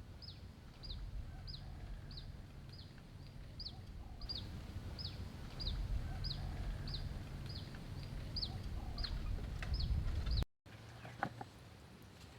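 A bird chirping over and over, a short high chirp falling in pitch about twice a second, over a low rumble. Both stop suddenly near the end, and a few faint clicks follow.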